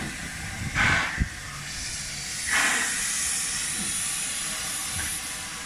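Steam hissing from a New Zealand Railways Ab-class steam locomotive as it reverses slowly, with two louder puffs of steam about a second and a half apart and a single sharp knock about a second in.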